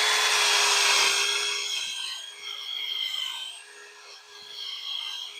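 Electric drill spinning a wire brush against steel clamped in a vise: the motor starts up with a steady whine, and the brush's scratching hiss is loudest at first, then rises and falls as it works the metal.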